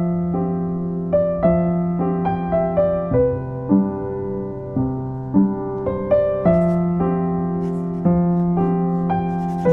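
Background piano music: a slow melody of separate struck notes over held lower notes.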